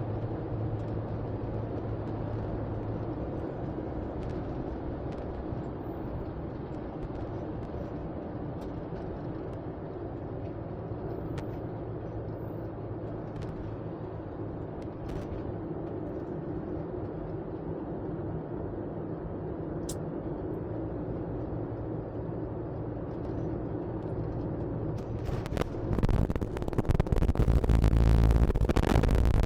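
Steady car cabin noise while driving: tyre and engine hum on the road. Near the end it grows louder with a deeper rumble.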